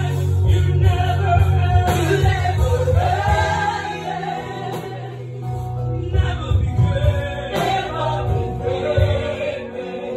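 Gospel music: voices singing together in a choir over bass and drums.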